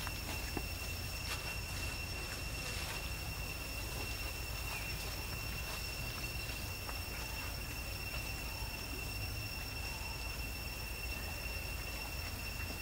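Steady, unchanging high-pitched insect drone, one tone with a fainter one an octave above, over a low steady rumble.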